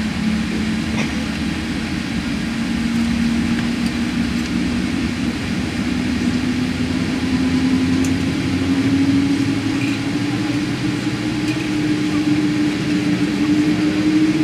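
Rolls-Royce Trent 1000 turbofan on a Boeing 787-8 winding up during engine start, heard from inside the cabin: a hum that climbs slowly and steadily in pitch over a constant rushing cabin noise.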